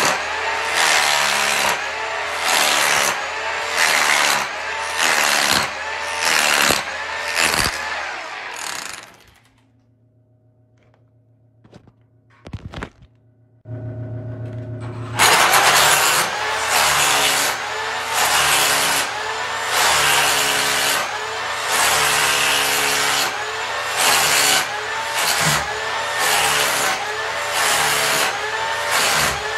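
Electric hammer with a flat chisel bit running and chipping peel-and-stick tile off a floor, in repeated pushes about one and a half a second. It stops for about five seconds in the middle, with a couple of clicks and a short hum, then starts up again.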